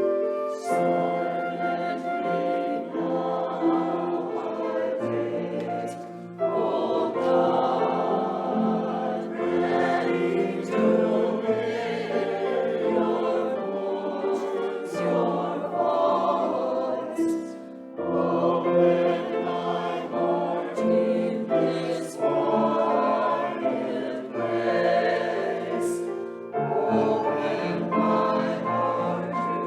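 Choir singing a hymn in sustained chords, phrase by phrase, with brief breaks between the phrases.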